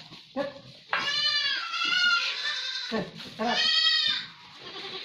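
Goats bleating: two long, high calls, the first lasting about two seconds and falling in pitch at its end, the second shorter.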